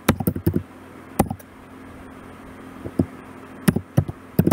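Typing on a computer keyboard: a quick run of keystroke clicks at the start, then scattered single keystrokes with pauses between them, over a faint steady hum.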